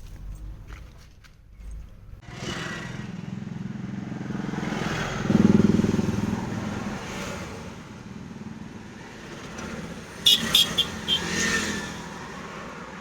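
A motor vehicle engine builds up from about two seconds in, is loudest about five seconds in, and then runs on steadily. A quick run of sharp clicks comes near the end.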